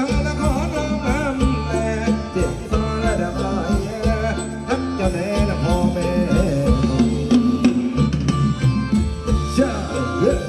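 Live band playing Thai ramwong dance music: a steady bass-heavy beat under a wavering lead melody.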